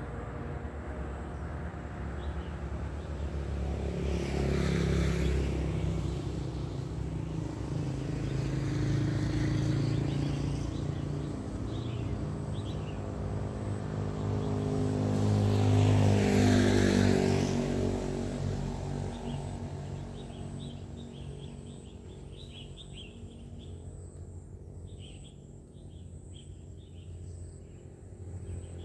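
Motor vehicles passing on a nearby road, three in turn, each swelling and fading away, the loudest about halfway through. In the last several seconds, birds chirp over a quieter background.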